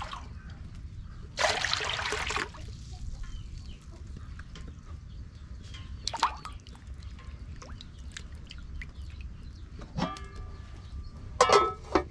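Water pouring, then splashing and trickling in a large aluminium basin as a raw pork slab is washed in it. A louder clatter comes near the end.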